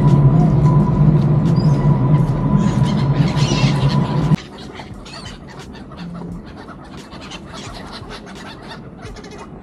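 A loud, steady low rumble of city traffic cuts off abruptly about four seconds in. After it, gulls call over the river in many short, sharp cries.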